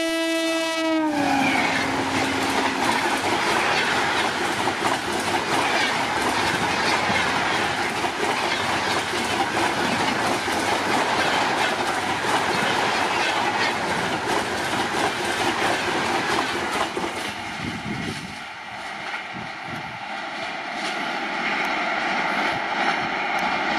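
WAP-7 electric locomotive's horn sounding, dropping in pitch as it ends about a second in, then an express train passing at about 130 km/h: a loud rush of coaches with wheels clicking over rail joints, easing off somewhat near the end as the train draws away.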